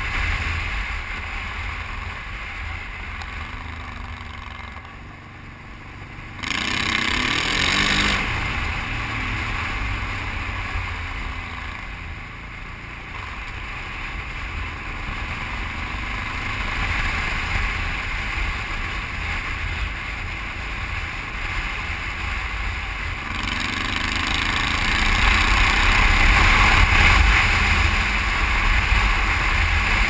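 A Honda XRV750 Africa Twin V-twin engine running under way, with a steady rush of wind noise over the microphone. The engine eases off around five seconds in, then picks up sharply with a rising pitch about six seconds in, and accelerates again with a rising note from about twenty-three seconds in.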